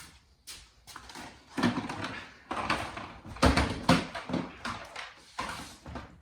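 Irregular knocks, scuffs and bumps of a car being shifted by hand out of a cramped garage corner.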